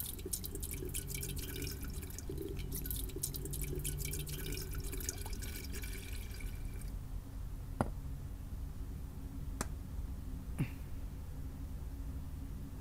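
Hot tea poured from a stainless-steel saucepan into a small steel canister, a trickling stream for about the first seven seconds. Then three separate sharp ticks.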